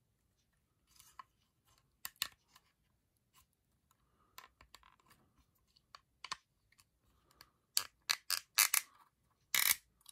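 Small plastic clicks and scrapes from handling a Hot Toys Mandalorian jetpack accessory while clear plastic flame-effect pieces are pushed into its thruster nozzles, with a run of louder clicks near the end as they seat.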